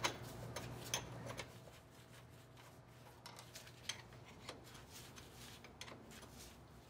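Faint, scattered metallic clicks and ticks of a socket wrench working the drive shaft's U-joint bolts at the rear axle yoke, more frequent in the first second or so and sparser after, over a faint steady hum.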